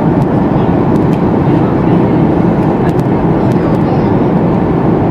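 Steady, loud cabin noise inside a Boeing 737 MAX 8: its CFM LEAP-1B engines and the rush of air, heard from a window seat over the wing. A few faint clicks or rattles sound on top.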